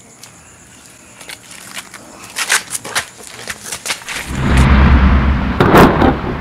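Scattered crackling clicks, then a loud low rumbling rush that swells from about four seconds in, peaks near the end and eases off: a film sound effect like something flying in or crashing.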